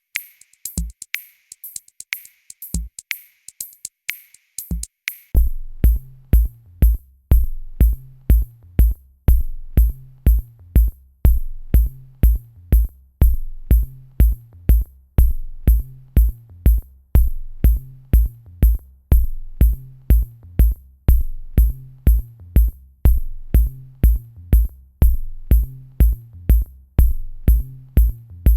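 Electronic drum-machine music. Sparse high percussion ticks with an occasional kick give way about five seconds in to a steady, fast kick-drum beat with a repeating bass line.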